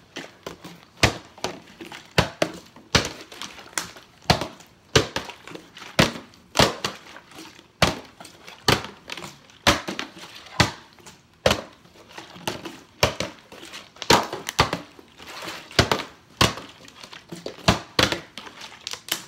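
Two partly filled plastic water bottles being flipped over and over and landing on a wooden floor: a steady run of sharp thuds and plastic clatters, one or two a second.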